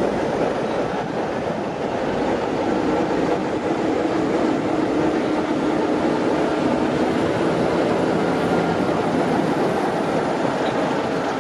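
Diesel locomotive-hauled train running along the line: a steady rumble of wheels on track with the locomotive's engine hum underneath.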